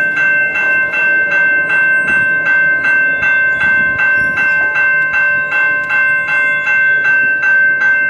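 Railroad grade-crossing bell ringing in an even rhythm of about two strokes a second while the crossing gates come down.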